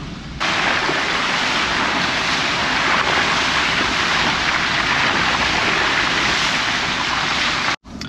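Loud, steady rush of water from a rain-swollen mountain stream, coming in suddenly just after the start and cutting off abruptly near the end.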